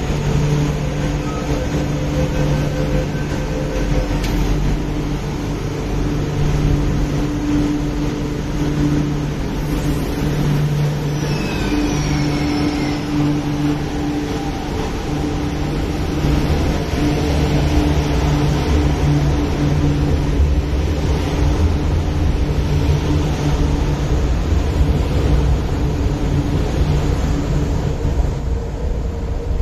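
An MTR Kwun Tong Line Q-Train (Hyundai Rotem electric multiple unit) pulling out of the station: a steady electrical hum, a rising traction whine about 12 s in as it picks up speed, then the cars rumbling past on the rails, thinning out near the end as the last car leaves.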